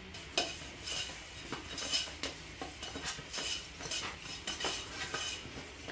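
A hand rubbing oil around the inside of a round metal baking pan, with light, irregular taps and clinks of the pan.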